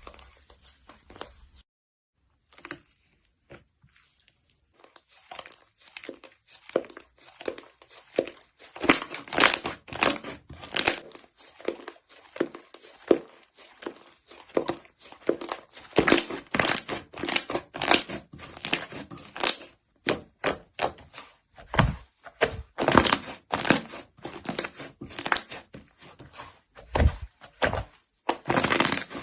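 Slime being squeezed and pressed by hand close to the microphone, making a run of crackles, pops and clicks. After a short break near the start the crackling is sparse, then turns dense and loud about eight seconds in.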